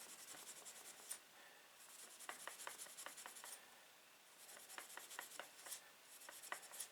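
Steel wool scrubbing the steel blade of a small Zippo pocketknife to clean it: faint, quick back-and-forth rubbing strokes in several short spells with brief pauses between.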